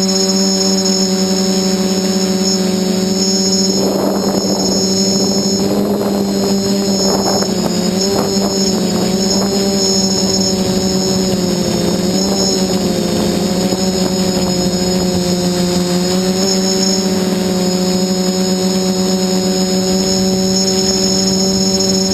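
Quadcopter's four SunnySky 2216 800KV brushless motors spinning 8x4.5 carbon props in flight: a steady buzzing hum with a thin high whine above it. The pitch wavers slightly with throttle, and a few brief rushes of air noise come about four to eight seconds in.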